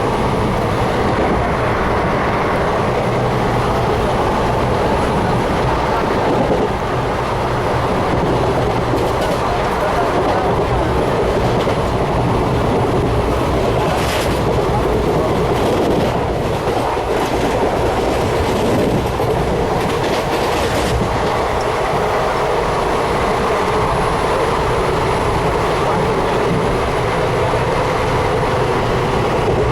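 Passenger train running, heard from inside a general coach: a loud, steady rumble of wheels and carriage, with a few sharp clacks over rail joints in the middle.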